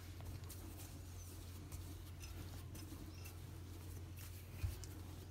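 Faint rubbing and light clicking of a wooden rolling pin rolling out yeast dough on a floured countertop, over a steady low hum. A single soft thump comes near the end.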